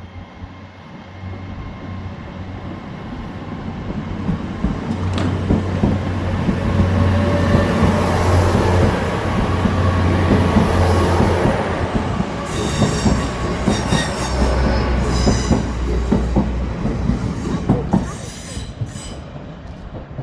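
Train rolling through the station, growing louder, its wheels clattering over the rail joints under a low steady drone. In the second half the wheels squeal high and sharply on and off, a sound described as super squeaky.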